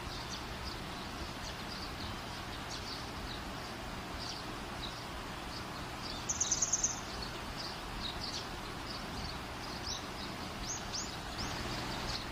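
Birds chirping in short high calls over a steady background hiss, with a brief rapid trill about six seconds in.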